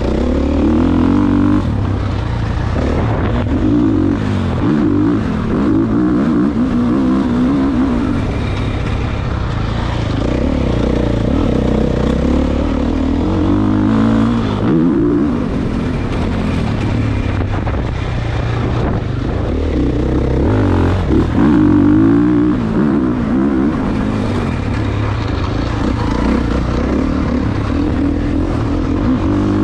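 Dirt bike engine revving up and down as the rider accelerates and shifts, its pitch rising and falling every few seconds.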